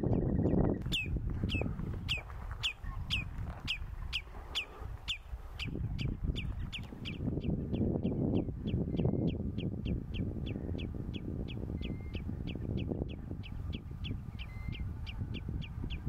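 Common redshank giving its alarm call: a long run of sharp, downward-slurred notes, about three a second, over a steady low rumble.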